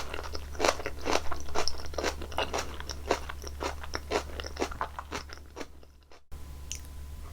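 Close-miked chewing of pumpkin sweet potato: quick, moist mouth clicks and soft crunches that thin out and fade around five to six seconds in.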